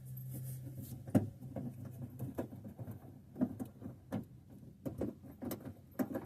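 Scattered plastic clicks, knocks and rustling as a car's headlight bulb is wiggled out of its housing behind the fender, with a sharp click about a second in. A low steady hum stops at about the same moment.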